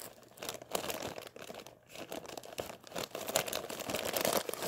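Plastic poly mailer bag crinkling and rustling as it is handled and worked open, in irregular crackles that grow louder over the last couple of seconds.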